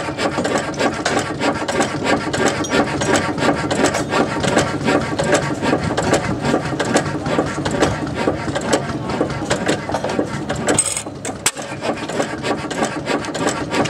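Antique hopper-cooled stationary gas engine running, a dense rapid mechanical clatter from its flywheels and valve gear, briefly quieter about eleven seconds in.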